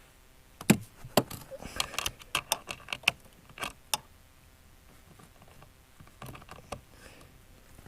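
Irregular metallic clicks and clinks of hand tools on the bolt of a snowmobile ice scratcher as it is tightened, in a run of a few seconds, then a few fainter clicks near the end.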